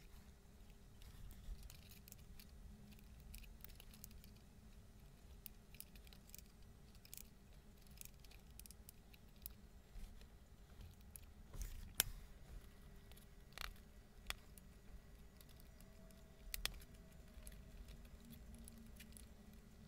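Faint, scattered small clicks and taps, about a dozen, the sharpest about twelve seconds in, from hands working on a car's dashboard instrument cluster while fitting and setting its gauge needles. Beneath them, near-silent room tone with a faint steady hum.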